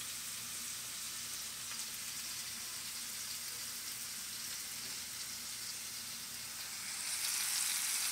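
Shrimp sizzling in oil in a frying pan: a steady frying hiss. About seven seconds in the sizzle grows louder as cubed steak searing in a second pan comes close.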